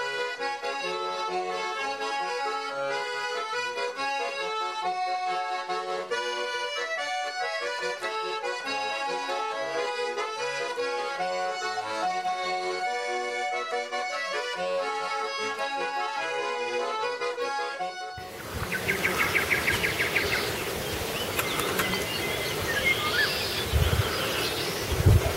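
Accordion music playing a lively tune that stops abruptly about three-quarters of the way through. It gives way to an outdoor-sounding ambience with bird chirps and a few low thumps near the end.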